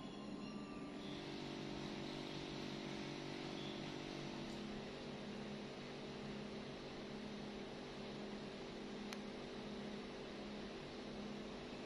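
A steady low hum with an even hiss over it, like background room noise. There is a single faint click about nine seconds in.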